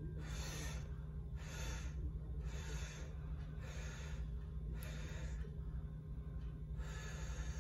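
Breathing close to the microphone, a short airy breath roughly once a second, over a steady low room hum.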